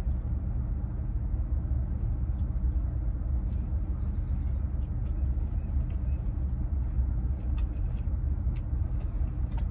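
Steady low rumble, with faint irregular clicks and smacks of someone chewing a pastry.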